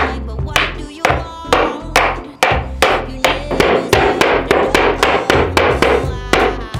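Hammer striking a bare wooden board over and over, about three to four blows a second in an uneven rhythm, denting the surface to distress it for a vintage aged look.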